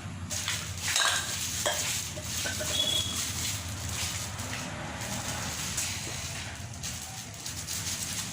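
Scratchy rustling and light clattering as the bird cage and its parts are handled, with a few brief high chirps.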